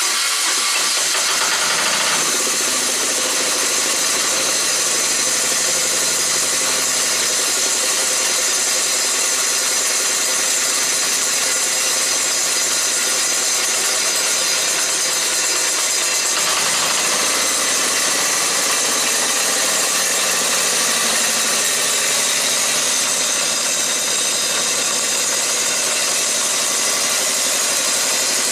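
Diesel engine of a John Deere 140 garden tractor running steadily at idle, just after a cold start.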